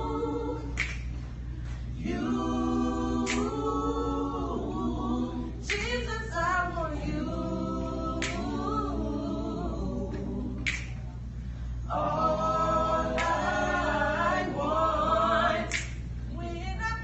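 A small mixed vocal group singing a gospel song a cappella in close harmony, in phrases without accompaniment. A sharp click marks the beat about every two and a half seconds, over a steady low hum.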